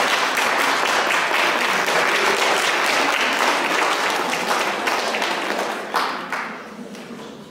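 Audience applauding, a dense steady clapping that dies away about six to seven seconds in.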